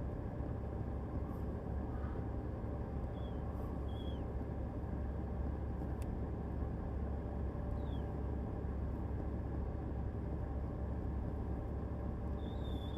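A steady low rumble, with a few short, faint high chirps scattered through it.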